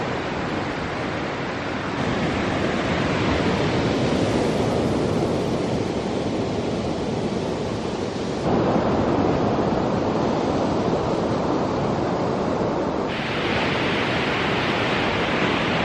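Ocean surf on a beach: a steady, even rushing that changes abruptly in level and tone twice, about halfway and again near the end.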